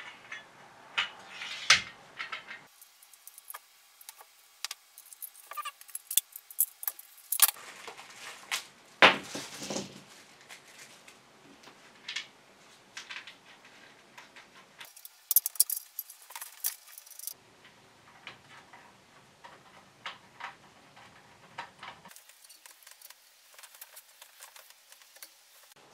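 Screws and parts of a fishing rod rack clicking and rattling as it is put together by hand: scattered sharp clicks and short rattles with quiet gaps between them.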